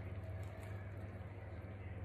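Faint mouth sounds of a person biting and chewing pizza, over a steady low hum.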